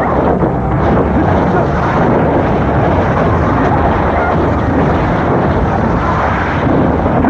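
Loud, steady rushing and rumbling noise with no clear tone or rhythm.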